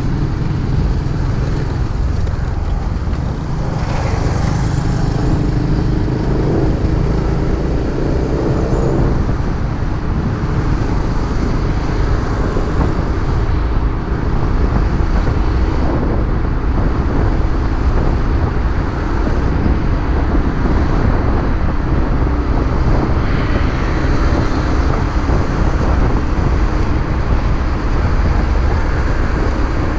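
Freshly overhauled motorcycle riding on the road: steady engine and wind rumble with road traffic around it.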